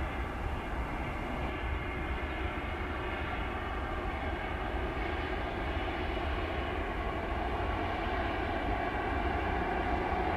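Airbus A320 jet engines running as the airliner rolls along the runway: a steady rumble under a layered engine whine, growing slowly louder.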